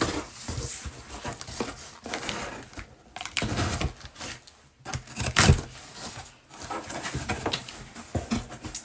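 Packing tape and cardboard being torn and pulled open on a heavily taped shipping box, in irregular scratchy rips and rustles with a few sharp cracks, the loudest about five and a half seconds in.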